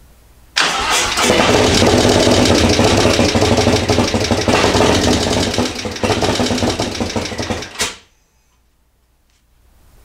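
Harley-Davidson Milwaukee-Eight V-twin running through a freshly built custom exhaust. It comes in suddenly about half a second in, runs loud with a fast even pulse, and cuts off sharply near the end.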